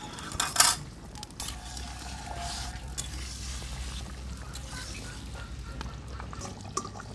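A metal ladle stirring a large iron wok of boiling fish curry, clinking and scraping against the pan. A loud clatter comes about half a second in, followed by a few lighter knocks over a low steady rumble.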